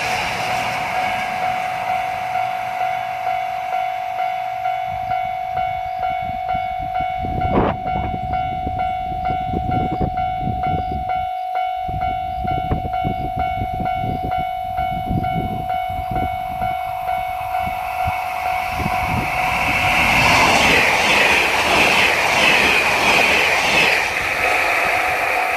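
Japanese level-crossing warning bell ringing in a steady pulsing rhythm. A JR Hokkaido 789 series electric limited-express train clatters over the crossing, wheels beating on the rail joints from about seven seconds in until about nineteen seconds. There is a short sharp sound as the train arrives, and a louder rushing hiss near the end.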